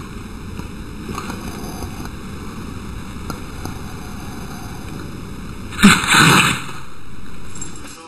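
A dog sneezes once, loudly and suddenly, about six seconds in, over steady background hiss.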